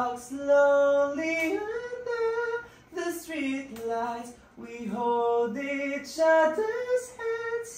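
A solo high voice singing a slow melody without accompaniment, holding notes and sliding between them, as a song is worked out in a recording studio.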